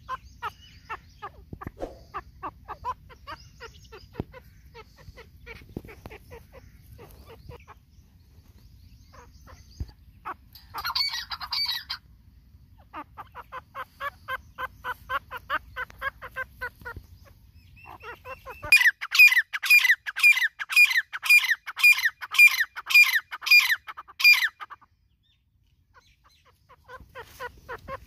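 Irani teetar (partridge) calling: a long run of quick repeated notes, with a brighter burst about eleven seconds in. About two-thirds of the way through comes a series of about a dozen loud, evenly spaced calls, roughly two a second, which stops abruptly.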